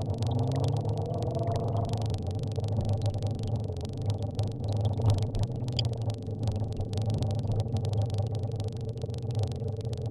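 Car engine and road noise heard from inside the cabin while driving, a steady low hum with the engine note rising over the first couple of seconds as the car accelerates.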